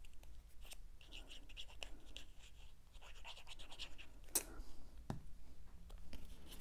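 Fine plastic tip of a liquid craft glue bottle scratching across cardstock as glue is drawn out in squiggles, in two short stretches, with a sharp tap of paper handling about four seconds in.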